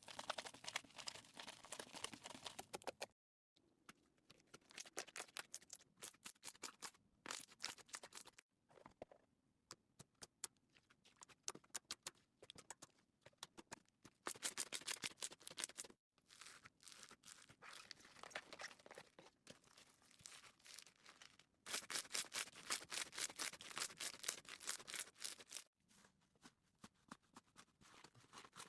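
Slime being squished and played with, a fast run of small clicking and popping sounds that stops and restarts with sudden cuts several times.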